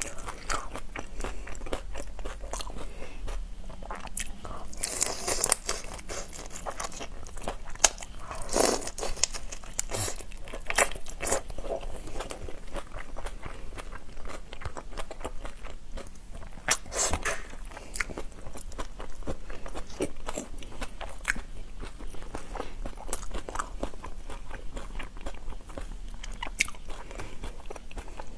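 Close-up sounds of a person eating raw shell-on shrimp: biting, crunching and chewing, with many small clicks and a few louder crunches.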